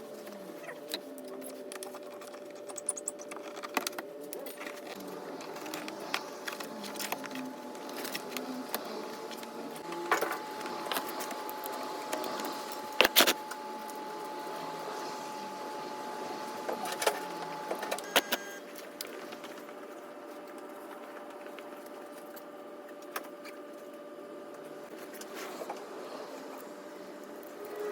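Scattered small clicks and clinks over a faint steady hum, with a brief cluster of sharp knocks about thirteen seconds in.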